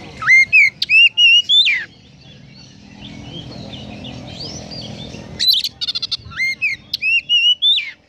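Oriental magpie-robin singing two loud phrases of whistled, upward-slurred notes, the second opening with a quick run of clicking notes. Fainter chirping fills the gap between the phrases.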